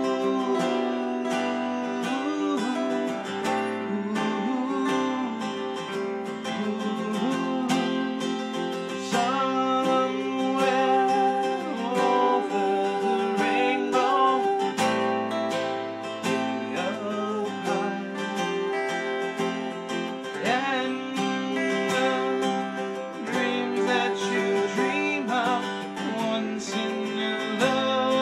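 Acoustic guitar strummed in a steady rhythm alongside a second guitar, with a man singing over them.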